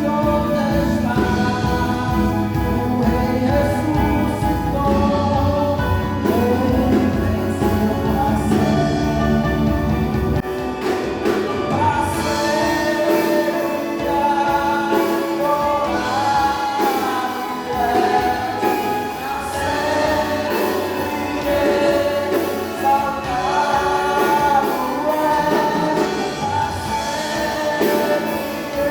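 Gospel band playing a worship song with group singing. About ten seconds in, the bass and drums drop away, leaving the voices over lighter accompaniment.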